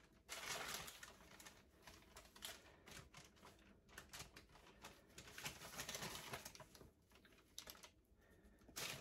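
Parchment paper rustling and crinkling faintly in irregular bursts as it is lifted and pulled over soft, sticky dough on a baking sheet.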